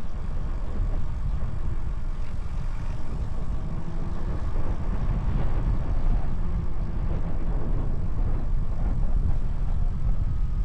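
Steady low rumble of wind and road noise on the built-in microphone of an Insta360 X4 camera carried on a moving e-bike, the mic fitted with wind muffs.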